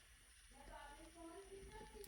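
Faint child's voice singing softly to herself in held notes, starting about half a second in.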